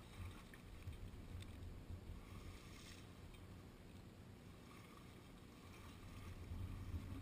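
Faint splashing and sloshing of water as people wade through a pond and haul an overturned quad, with a low rumble underneath.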